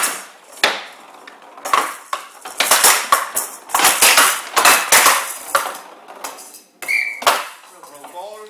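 A Showdown rally: the bead-filled ball rattles as it rolls and is hit back and forth by the players' bats, with a run of sharp knocks off the bats and the wooden side walls of the table. A short high tone sounds about seven seconds in.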